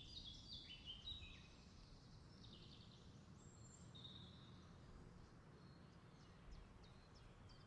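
Near silence: faint room tone, with a few faint high chirps in the first second or so.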